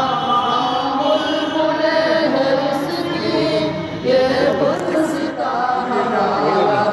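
A large group of young voices singing together in unison, a slow chant-like song sung by the assembled students.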